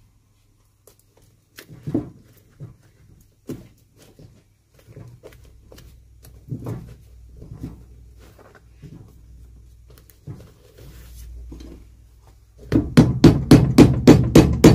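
Cobbler's hammer beating the leather sole of a golf shoe held on a metal last stand, setting the glued sole down. It comes as rapid, even blows, about four a second, starting near the end, after quieter scattered knocks and handling of the shoe.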